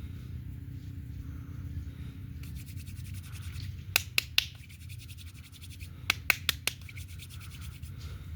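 Joints cracking during a chiropractic-style massage: three sharp cracks about a fifth of a second apart, then, two seconds later, four more at the same pace, the last one softer. Just before them comes a short, fast rasping rub, all over a steady low hum.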